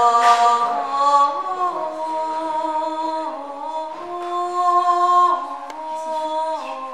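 Several voices singing long, wordless held notes together a cappella, the pitches stepping from one sustained note to the next.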